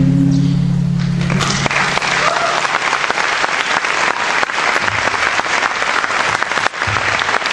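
The last chord of a steel-string acoustic guitar ringing out and fading over the first few seconds, while an audience bursts into applause about a second in and keeps clapping.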